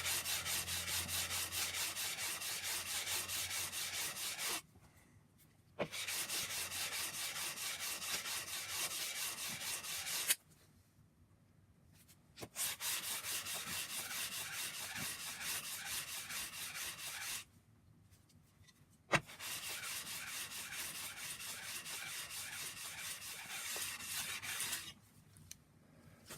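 Steel planer knife held in a Deulen sharpening jig being stroked rapidly back and forth on sandpaper: a rasping scrape in four runs of strokes, broken by short pauses, with a sharp knock as some runs begin. It is the knife's bevel being honed flat to wear out nicks in the edge.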